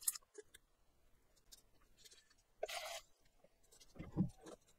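Faint handling sounds: a few light clicks, a short papery rustle about two and a half seconds in, and a soft thud about four seconds in.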